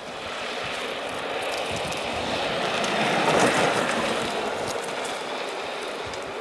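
Engineless gravity kart coasting downhill, its tyres hissing on the asphalt, growing louder to a peak about halfway through as it passes close, then fading.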